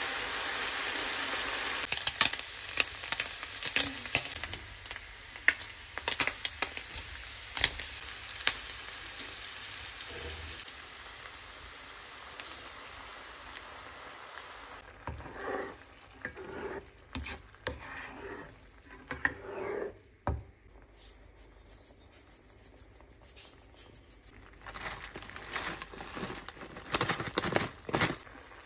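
Diced bacon frying in a non-stick pan: a steady sizzle with frequent sharp pops. About halfway the sizzle dies down, leaving irregular stirring and scraping of a spatula in the pan.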